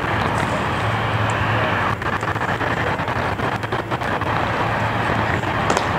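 Steady rushing background noise, with a few faint clicks about two to four seconds in.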